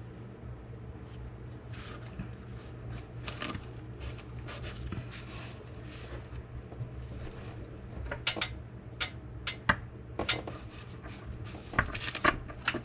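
Scattered metallic clinks and light knocks of hand tools and metal parts being handled, sparse at first and coming thick and sharp in the second half, over a steady low hum.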